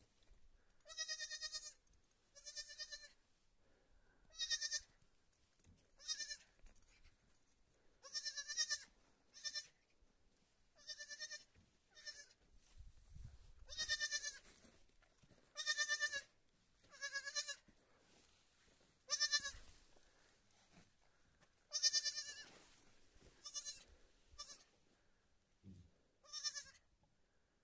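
A young lamb bleating over and over, about fifteen high calls one every second or two, each with a quavering pitch.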